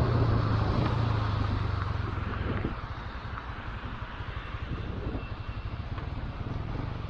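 Motorcycle engine running while riding, its low note fading out about two and a half seconds in as the throttle drops away, over a steady hiss of wind and road noise.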